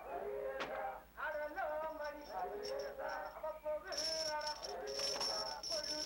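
A voice singing a melody in held, gliding notes, with a steady high ringing tone joining in about four seconds in.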